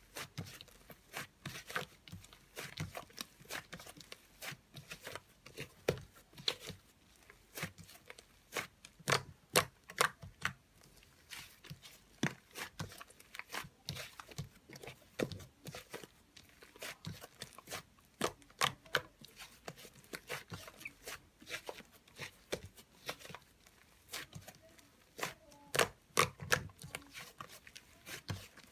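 Irregular clicks and taps, several a second, like small objects being handled.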